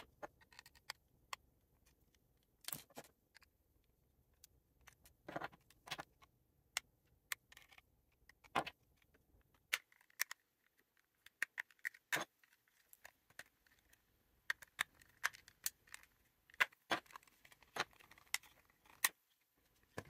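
Plastic snap-clips of a Logitech Harmony Smart Control remote's shell clicking loose as its seam is pried open with a plastic spudger: a string of quiet, sharp, irregular clicks and small snaps.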